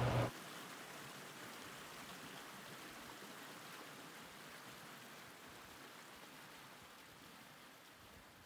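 A low hum cuts off a moment after the start, leaving a faint, even hiss that slowly fades out.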